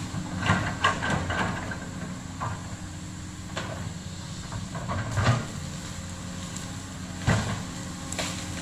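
Komatsu PC200 hydraulic excavator's diesel engine running steadily, with a string of sharp cracks and knocks over it, the loudest about five and seven seconds in.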